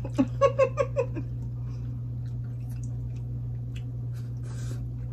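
Mouth noises of people eating with their fingers: scattered soft clicks of chewing and lip-smacking, with a quick run of four or five short hummed vocal pulses near the start and a short wet smack about four and a half seconds in. A steady low hum runs underneath.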